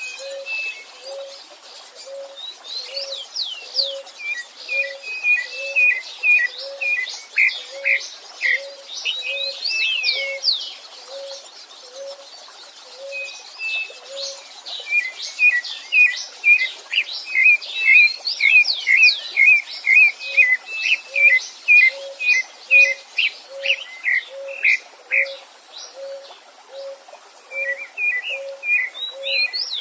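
Several wild birds singing together: fast runs of high chirps and quick downward-sweeping whistles that ease off briefly mid-way and then return thicker. Under them a low note repeats at an even pace, a little more than once a second, with a faint stream hiss behind.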